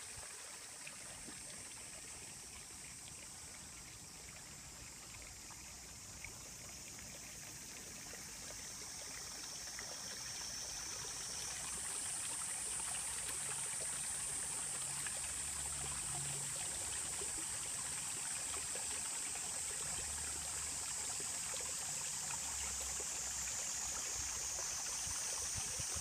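Outdoor ambience: a steady high-pitched hiss that grows louder about halfway through, over a faint low rumble.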